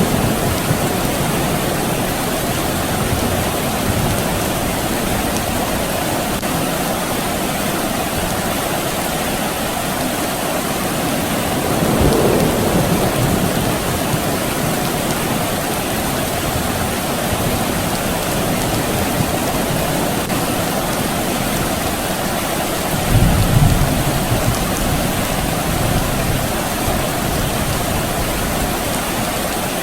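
Steady soft rain, with distant thunder rumbling low twice: a softer swell near the middle and a heavier rumble about two-thirds of the way through.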